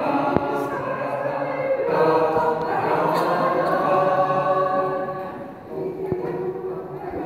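Mixed choir of men's and women's voices singing unaccompanied, the sound dropping away briefly about five and a half seconds in before the voices carry on.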